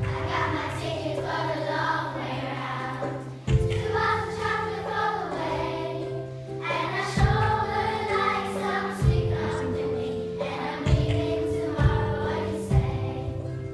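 A group of children singing together over accompaniment of long held chords that change every few seconds. A few sharp taps sound in the second half.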